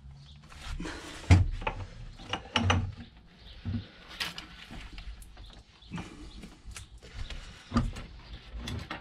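Irregular knocks, clunks and rubbing as a car driveshaft and its rubber CV boot are handled and worked by gloved hands on a wooden workbench, with a few louder thumps, the first about a second and a half in.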